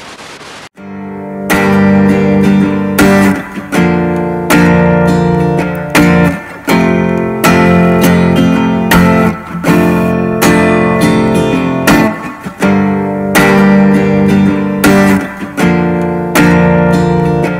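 A brief hiss of static, then loud strummed guitar music, with sharp chord strokes and short breaks between phrases.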